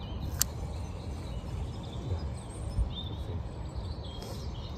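Outdoor riverbank ambience: a steady low rumbling noise, with one sharp click shortly after the start and a few faint bird chirps near the middle.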